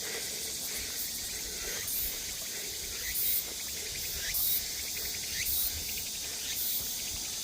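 Summer insects droning steadily, with a soft high rustle recurring about once a second and a few faint rising chirps.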